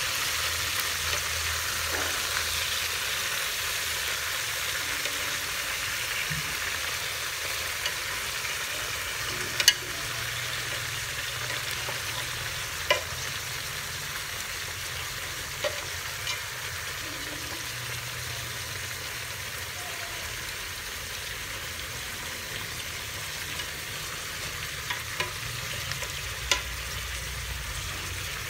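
Chicken pieces sizzling as they sear in a metal pot, the sizzle slowly easing, while they are turned with chopsticks. There are a few sharp clicks and taps throughout.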